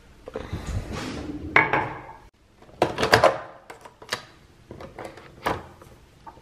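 A ceramic mug and cups clinking and knocking on a kitchen counter as a mug is picked up and set under a coffee machine: scraping at first, then a series of separate sharp clacks.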